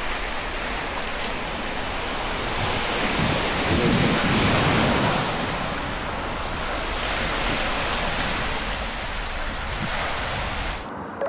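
Ocean surf breaking on the shore: a steady wash of waves that swells about four seconds in and again near eight seconds, with wind buffeting the microphone.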